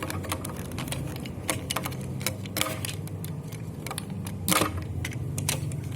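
Plastic parts of a transforming toy robot being handled, giving a string of irregular small clicks and snaps, over a steady low hum.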